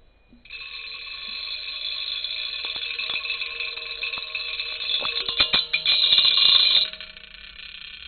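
Vibration motor buzzing against an mbira, shaking its metal tines into a ringing, bell-like buzz. It starts about half a second in and grows louder, with rattling clatters near the end, then drops suddenly to a quieter buzz about seven seconds in.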